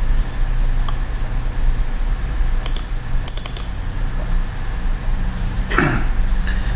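A few quick computer clicks, a pair and then a run of about three, over a steady low hum; near the end comes a short sound that falls in pitch.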